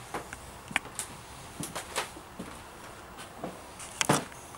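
Footsteps on an old wooden floor with light creaks: scattered short knocks and clicks at an uneven pace, the loudest a close double knock near the end.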